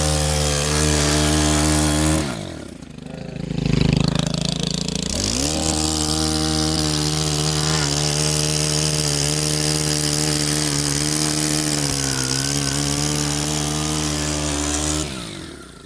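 Stihl KM 131 R KombiMotor's small four-stroke 4-MIX engine driving an edge trimmer attachment at high revs. The revs drop about two seconds in and rise again a few seconds later, then hold steady and fall away near the end.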